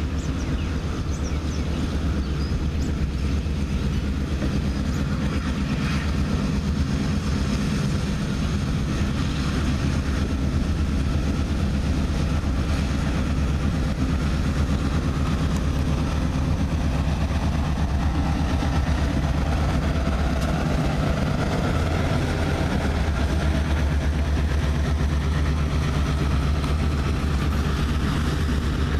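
EMD GP38-2 diesel locomotive with its two-stroke V16 engine running steadily as it approaches and passes close by, leading a freight train. The low rumble shifts about two-thirds of the way through as the locomotive goes by and the cars follow.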